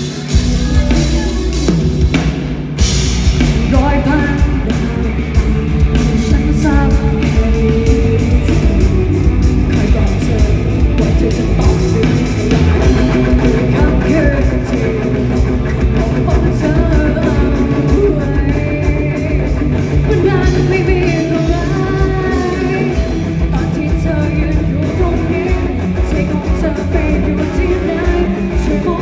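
Live rock band playing a song: a singer over drums and electric guitar, with a steady driving beat.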